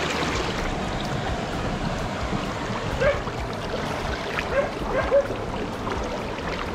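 Shallow stream water running and trickling, with a few short plops and splashes about three to five seconds in as a hand moves through the water.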